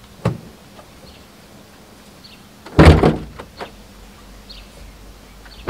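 A few sudden dull thumps, the loudest and longest about three seconds in, with a short low rumble after it, and a sharper thump at the end.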